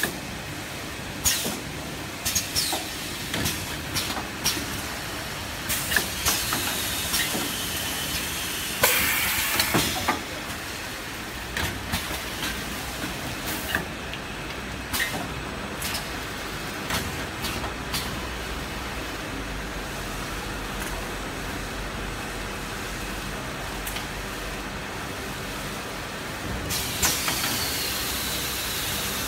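Small toilet-roll wrapping machine running: a steady mechanical hum with repeated clicks and knocks from its moving parts. Bursts of air hiss come about nine seconds in and again near the end.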